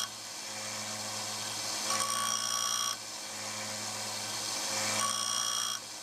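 Disc sander on a 1x30 belt sander running with a steady motor hum, while a steel screwdriver tip is pressed against the spinning disc twice, about a second each time, giving a high ringing grinding squeal during contact.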